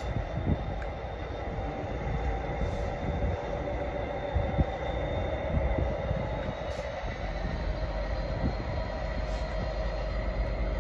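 Diesel locomotive in Direct Rail Services livery running with a steady engine drone and low rumble, a few faint clicks over it.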